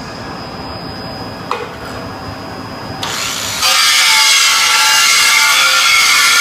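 A grinder being run, first a quieter steady whine, then about three and a half seconds in the disc bites into metal and a loud, harsh grinding noise takes over, taking material off the surface.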